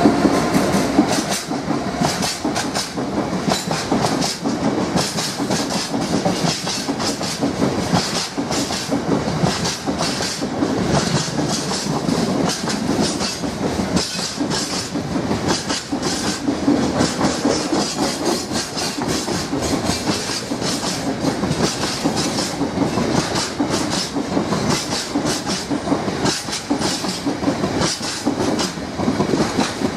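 Freight train passing at speed behind an EWS-liveried Class 66 diesel locomotive: the locomotive goes by right at the start. A long string of hopper wagons follows, rumbling steadily with a continuous clatter of wheels over the rail joints.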